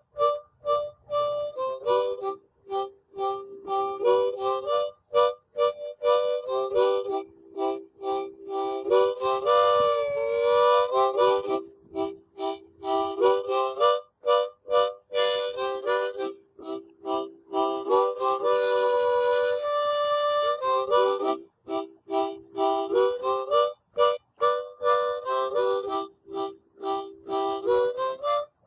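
Background music: a lively melody played in short, clipped notes with frequent brief breaks.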